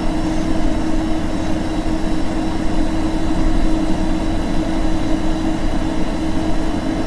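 Loud steady static and hum from weather radio receivers after the broadcast voice cuts off abruptly, a rough noise with a low steady tone running through it.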